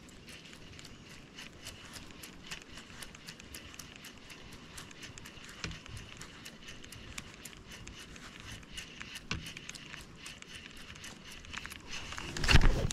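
Fishing reel faintly ticking in a quick, even rhythm as a topwater frog lure is retrieved, over a thin steady high hum. Near the end comes a sudden loud thump and splash as a small bass takes the frog and the hook is set.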